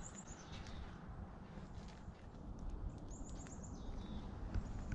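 Small bird chirping: a quick run of high notes at the start and another about three seconds in, over a faint low rumble.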